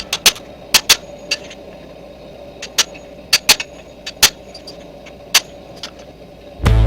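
Steady mechanical hum of a running shop machine, with about a dozen irregular sharp metallic clicks and taps.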